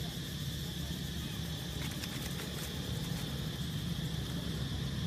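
Steady low engine rumble, a motor vehicle running, under a steady high insect drone.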